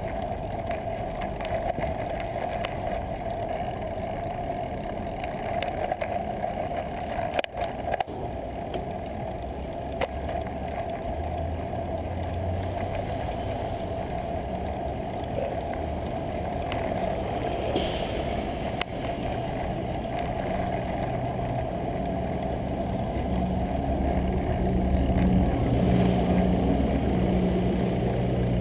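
Traffic and riding noise from a bicycle-mounted GoPro action camera on a city street: a steady hum and rush, with a couple of sharp knocks about seven to eight seconds in. In the last third a nearby motor vehicle's engine hums, growing louder toward the end.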